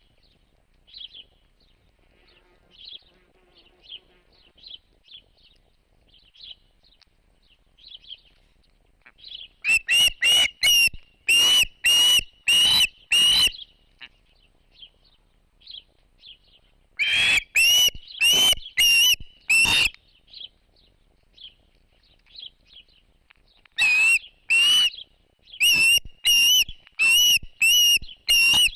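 Bird calling: loud runs of evenly spaced whistled notes, about two a second, in bouts starting about ten, seventeen and twenty-four seconds in. Soft, quick high chirping runs underneath throughout.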